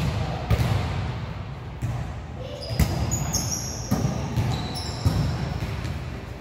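Volleyball thumps, about one a second, echoing in a gym, with short high-pitched sneaker squeaks on the court floor in the middle.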